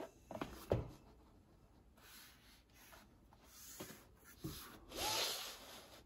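Cloth-covered book boards and case being handled on a table: two knocks in the first second, then several short scraping rubs of cloth sliding against cloth, the longest about five seconds in.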